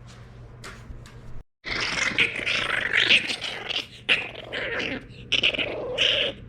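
French bulldog puppy growling loudly, starting sharply about a second and a half in and going in three long runs with short breaks between them.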